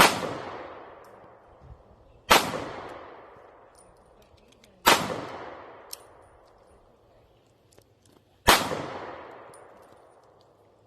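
Four gunshots, unevenly spaced over about eight seconds, each followed by a long fading echo.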